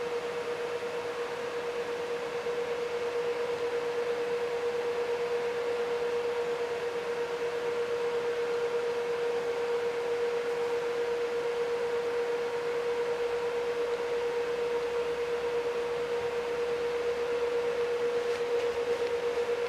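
A steady, unchanging hum at one mid pitch over a soft hiss.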